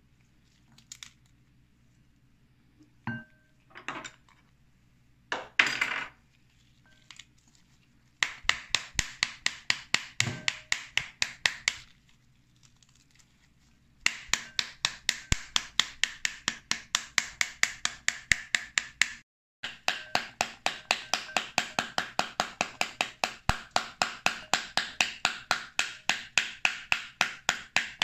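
A few scattered knocks and clatters, then long runs of rapid, even knocking strokes, about five a second, with a pause of about two seconds between the first and second run.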